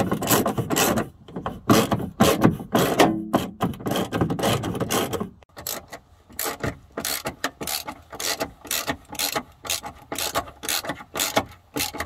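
Hand ratchet with an extension and Torx T50 socket tightening seatbelt anchor bolts into the car body, its pawl clicking rapidly in runs. The clicks come densely for the first half, then in sparser, shorter runs.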